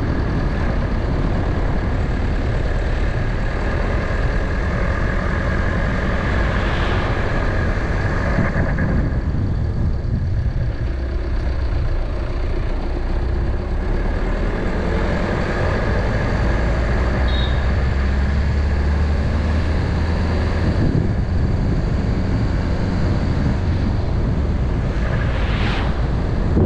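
Car driving along a road, with steady engine and road noise and a deep rumble underneath. There is a louder swell about a quarter of the way in and another near the end.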